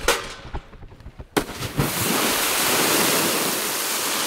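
A few faint clicks, then about a second and a half in a sudden loud rushing hiss that holds steady for about three seconds and cuts off near the end.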